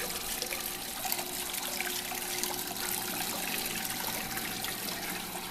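Water pouring and trickling through a Belshaw waterfall doughnut glazer, its pump circulating plain water instead of glaze, with a faint steady hum underneath.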